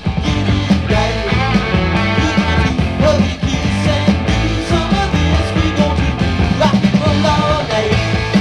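Rock song played from a vinyl record: a full band with a steady drum beat, bass and electric guitar.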